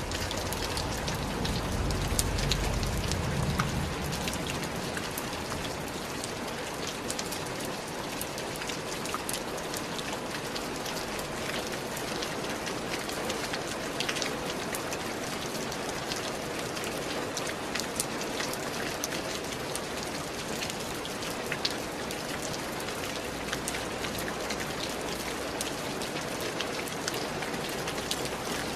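Steady rain falling, with many individual drops ticking sharply against a constant hiss. A low rumble sits under it for the first few seconds, then fades.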